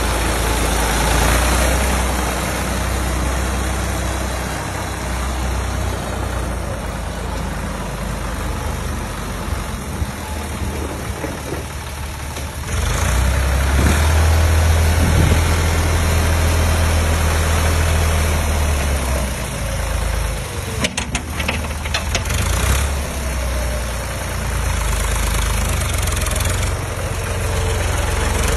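Diesel farm tractor engine running steadily, growing louder about halfway through.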